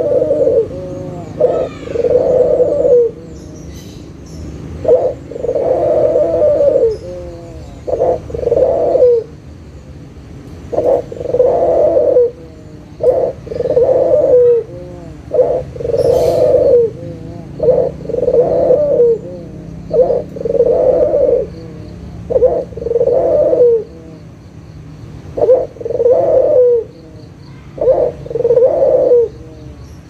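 White ringneck dove (Barbary dove) cooing: a steady series of rolling coos, each about a second long, in groups of two or three with short pauses between.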